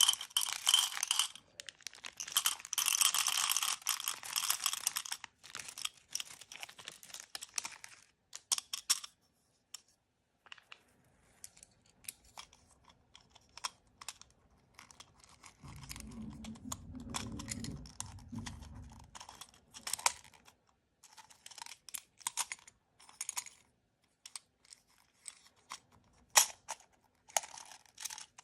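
Plastic blind-bag packaging being crinkled and torn open by hand, then scattered small clicks and rustles as the contents are handled. About halfway through comes a duller, lower rubbing sound that lasts a few seconds.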